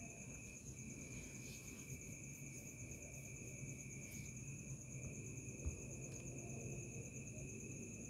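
Faint steady high-pitched insect trilling over a low background hum, with one soft click about five and a half seconds in.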